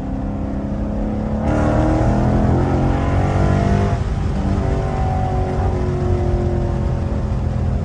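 Dodge Charger Scat Pack's 392 HEMI V8 heard from inside the cabin. About a second and a half in it opens up, getting louder with its pitch climbing, then eases back at about four seconds to a steady cruise.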